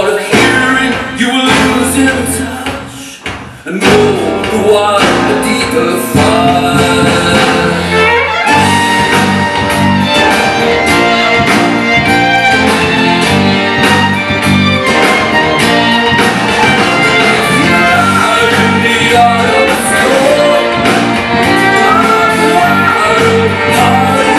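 Live folk-rock band playing an instrumental passage led by two violins and a cello, over bass guitar, keyboard and drums. It drops briefly about three seconds in, then the full band comes back in, with a steady drum beat from about eight seconds in.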